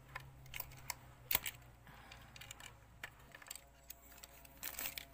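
Handling noise from a plastic digital clamp meter and its battery holder: scattered light plastic clicks and taps, the sharpest about a second and a half in, with a brief soft rustle near the end.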